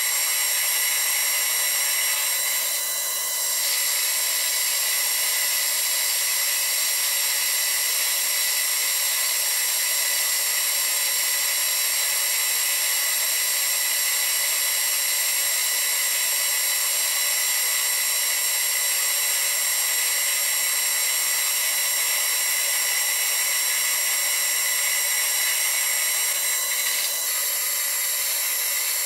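Metal lathe running and turning down a metal shaft, the cutting tool taking a steady cut, with a steady high-pitched whine from the spindle and gears.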